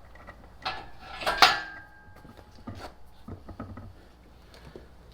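Metal parts and tools clanking as a car transmission and engine are handled, with one loud ringing metal clank about a second and a half in and scattered lighter knocks after.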